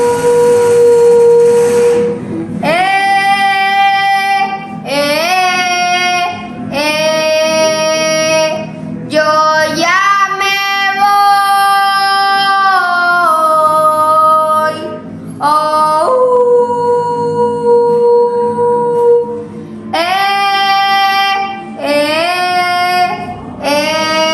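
A child singing a currulao, the traditional song of Colombia's Pacific coast, in phrases a few seconds long with long held notes, several scooping up in pitch as they start.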